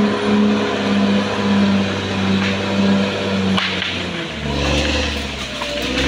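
Caterpillar D6R XL bulldozer's diesel engine running steadily. A sharp knock comes about three and a half seconds in, and just after it the engine note drops lower.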